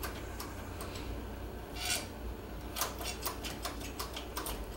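Irregular light clicks and ticks, with a short hiss about two seconds in, over a low steady hum.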